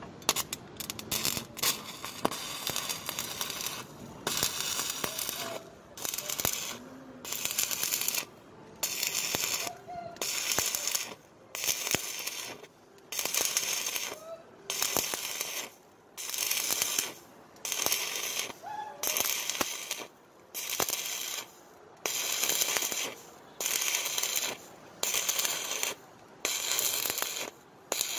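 Stick-welding arc on galvanized angle steel, a 4 mm electrode running a vertical first pass: a sizzling, crackling arc. After a few short, irregular crackles it settles into bursts of under a second, about one a second, each followed by a brief quiet gap.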